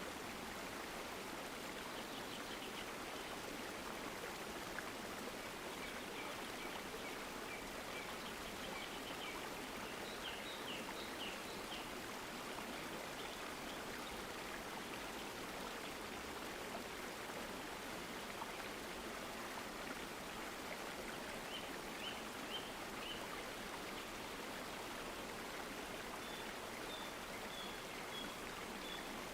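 Steady rushing and babbling of a stream, with faint bird chirps in short series a few times over it.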